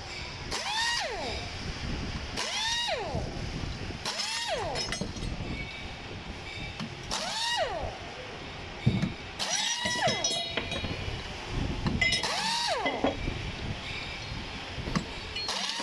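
A 5-blade 12V AC/DC fan running over a low rumble. About seven times, at irregular intervals, it gives a click followed by a short whine that rises and then falls in pitch. This is the noise fault the fan is being repaired for.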